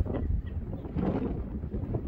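Wind buffeting the microphone in uneven gusts, a low rumbling rush that surges and dips.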